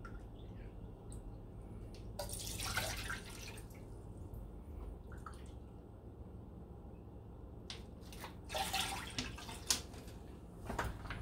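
Water poured from a plastic water bottle into a plastic measuring cup: a trickling pour about two seconds in, then more splashing pours later on, with a short sharp knock near the end.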